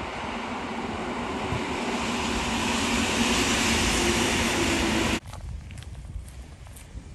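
Rushing noise of a passing vehicle, swelling louder and then cutting off abruptly about five seconds in.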